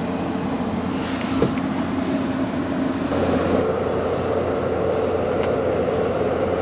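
Steady mechanical hum, like a running fan or air-conditioning unit, with a light click about a second and a half in. The hum grows louder about three seconds in.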